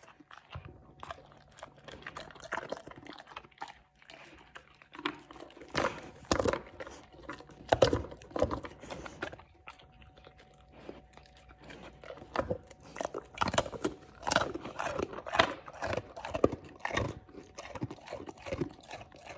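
English mastiff crunching and chewing Milk-Bone dog biscuits: irregular crunches, coming in quick runs of bites with quieter chewing in between.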